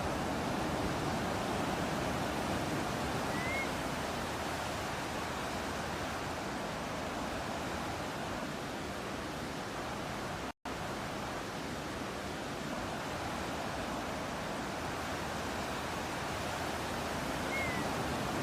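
Steady wash of ocean surf and breeze, with a faint short bird chirp twice, once early and once near the end. The sound cuts out completely for an instant a little past halfway.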